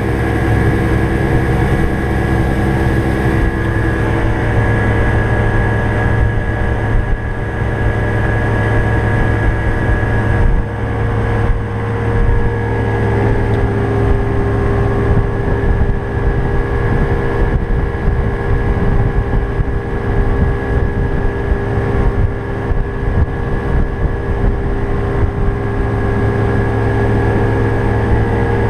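Fishing boat's engine running steadily with the boat underway, a constant engine drone with a slight change in its note about ten seconds in.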